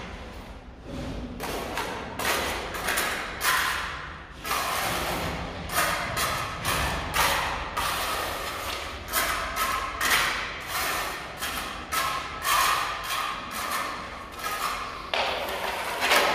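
Steel hand trowel scraping mortar along the top edge of ceramic skirting tiles and the wall above, in repeated strokes about one a second.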